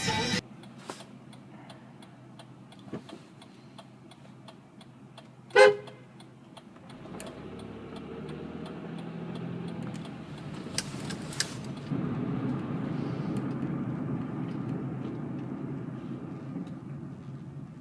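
A single short car-horn toot about five and a half seconds in, heard from inside a car over faint regular ticking; from about seven seconds on the car's engine and road noise grow louder as it drives off.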